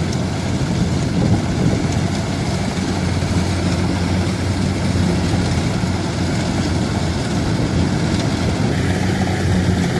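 Kubota DC-95 combine harvester running steadily while cutting rice, its diesel engine and threshing machinery giving a continuous low hum.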